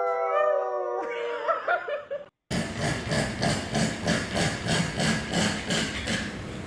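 A dog's howl trails off in the first second. After a short break comes a steady run of quick breathy pulses, about three a second.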